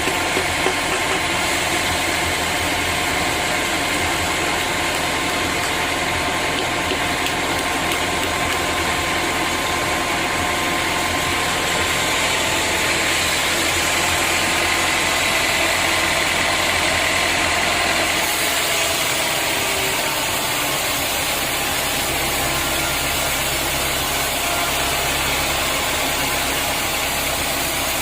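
Sawmill machinery running steadily, a loud mechanical hum and hiss whose tone shifts about two-thirds of the way through.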